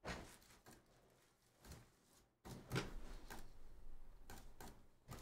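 Faint scattered clicks and taps of a computer keyboard and mouse, with a soft handling noise from about halfway in.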